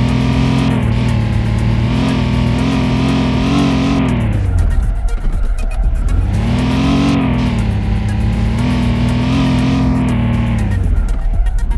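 Car engine revving. It is held at a steady high pitch, drops away about five seconds in, climbs back up and holds, then drops again near the end.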